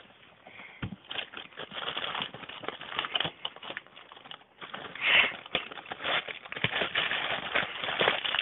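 Thin plastic carrier bag crinkling and rustling as a pet rat digs and burrows into it. After a quiet first second come quick, crackly rustles, loudest about five seconds in.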